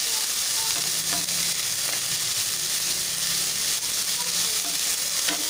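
Chopped onions sizzling in a little hot oil in a stainless steel pot, with a few light spatula taps as they are stirred.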